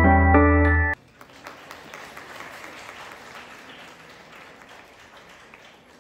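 Piano-like background music that cuts off abruptly about a second in, followed by an audience applauding, much quieter than the music and tapering off toward the end.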